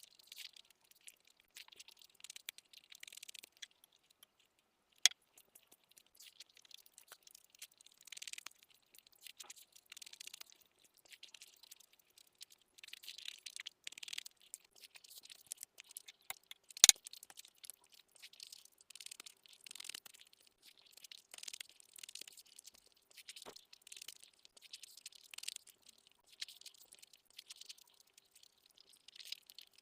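Close-miked eating sounds: wet chewing and mouth noises from eating egg curry with rice, coming in short, irregular bursts. There is a sharp click about five seconds in and a louder one a little past the middle.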